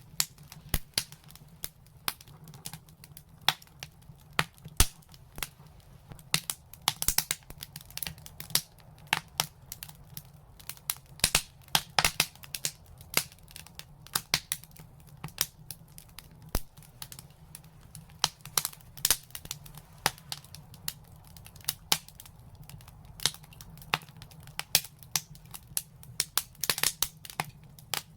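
Fire crackling and popping: irregular sharp snaps several times a second, with some louder pops, over a steady low rumble.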